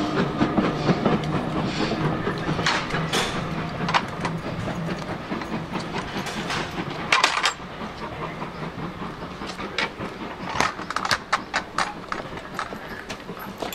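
A passenger train rolling away on the rails: a low rumble of wheels that fades as it goes, with scattered clicks and clanks from the running gear.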